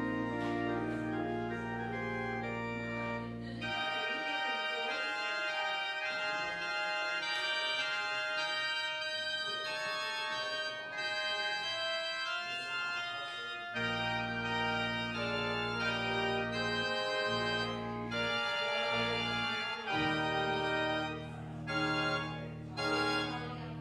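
Organ prelude of slow, sustained chords. The deep bass notes drop out about four seconds in, return near the middle, and sound again near the end.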